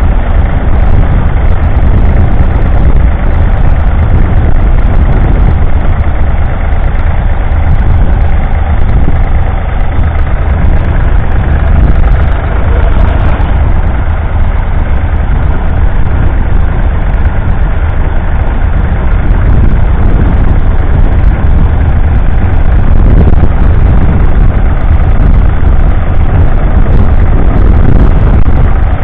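David Brown 780 tractor's 2.7-litre three-cylinder diesel engine running loud and steady under load while pulling a Ransomes plough through the soil.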